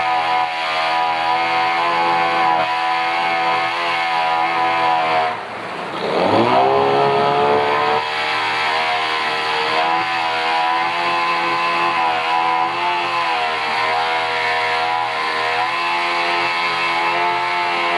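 Yamaha 15 hp outboard motor running steadily at high speed; about five seconds in the revs drop briefly, then the engine revs back up with a quick rising whine and runs on steadily.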